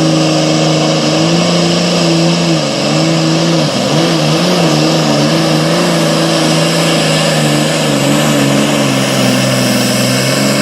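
Super farm pulling tractor's turbocharged diesel engine running flat out under load as it drags the sled. The engine note holds steady with a few wobbles in the middle and sags slowly toward the end as the load builds.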